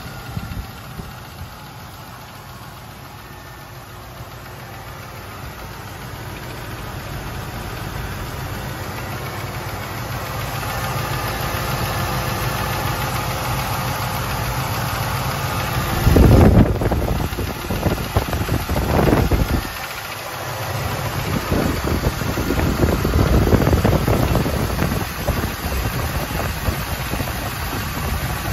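AMC 360 V8 idling with a tapping noise from the engine. Partway through there are several loud bursts of noise over the running engine.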